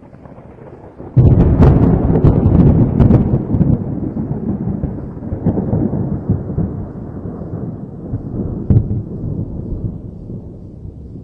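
A close thunderclap breaks suddenly about a second in, crackling sharply for a couple of seconds, then rolls on as a low rumble that slowly fades, with one more sharp crack about eight seconds in.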